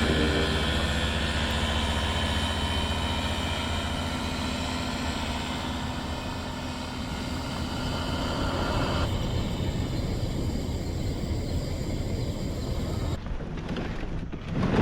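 Low engine drone of a passing vehicle, fading over the first few seconds and then holding steady at a lower level.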